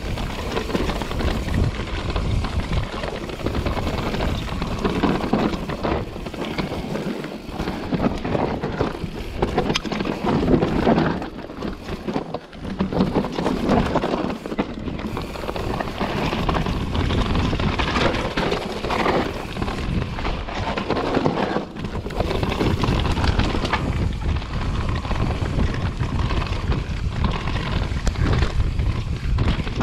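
Mountain bike descending fast on a rocky dirt trail: tyres rumbling and crunching over stones and roots, the bike rattling with irregular knocks over bumps, and wind buffeting the microphone.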